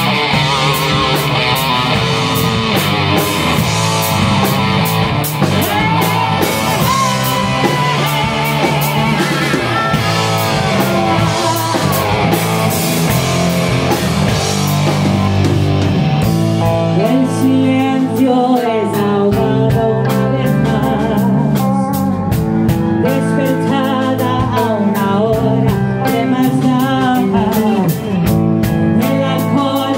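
Live rock band playing electric guitar, bass guitar and drum kit. A woman starts singing into a microphone about halfway through, in Spanish.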